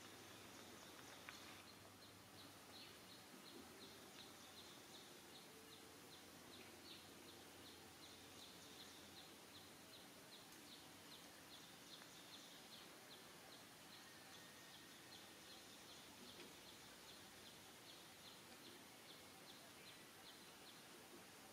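Faint natural ambience with a rapid, high-pitched chirping that repeats about four times a second. The chirping starts about two seconds in and keeps going.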